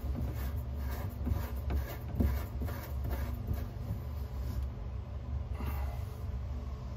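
Faint handling sounds of a hand working on a chrome sink drain tailpiece, light scrapes and small clicks, one a little louder about two seconds in, over a steady low hum.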